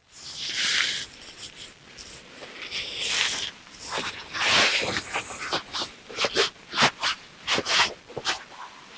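Rustling and breathy hissing close to the microphone, in several swells, then a quick run of short taps and clicks in the second half.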